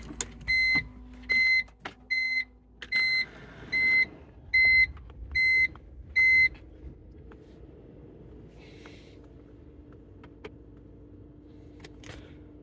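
Electronic warning beeps in a car's cabin: nine short, even beeps, a little more than one a second, that stop about six and a half seconds in. After that only a faint steady hum and a few small clicks.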